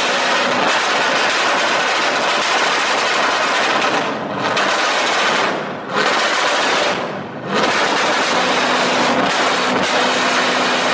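Car engine revved hard, loud and close, with rapid crackling pops from the exhaust. It eases off briefly three times before picking up again.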